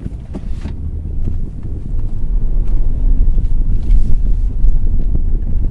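Low, uneven rumble inside a car, growing louder from about two seconds in, with a few faint clicks.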